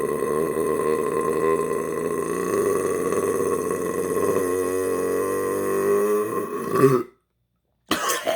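A man's long, continuous belch with a wavering pitch, held for about seven seconds, swelling briefly just before it cuts off abruptly. After a short pause comes a short loud gasp for breath.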